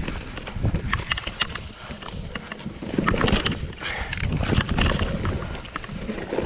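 Mountain bike riding fast down a dirt trail covered in dry leaves: tyres rolling and crackling over the leaves and ground, with many quick clicks and knocks as the bike rattles over bumps, loudest in the middle.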